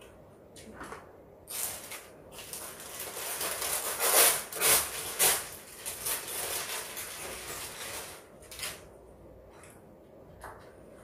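A thin clear plastic bag crinkling and rustling as it is handled and opened to take out leafy greens. The rustling runs for several seconds and is loudest in the middle, with a few light clicks of chopsticks or containers before and after.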